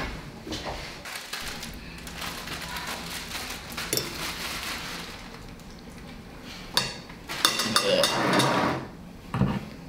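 Cutlery clinking and scraping against plates during a meal: a few separate clicks, then a busier run of clatter near the end.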